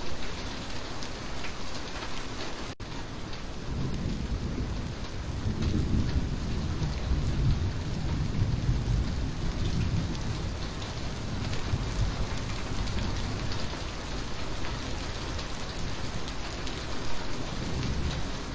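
Steady heavy rain falling, with a long low roll of thunder swelling through the middle and fading. There is a split-second break in the sound about three seconds in.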